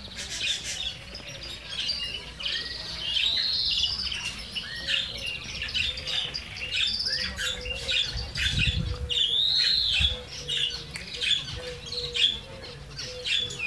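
Many caged aviary birds chirping and squawking, with several high, arching calls repeated through the chorus.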